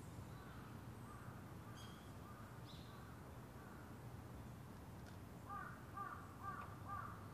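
Crows cawing: a run of faint, distant caws, then about five louder caws in quick succession near the end, roughly two a second.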